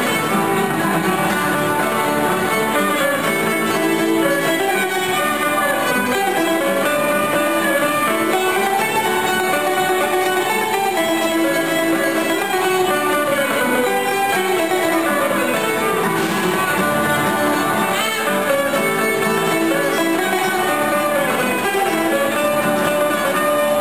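Live ceilidh band playing a march tune: fiddles carry the melody over a strummed acoustic guitar, at a steady full level.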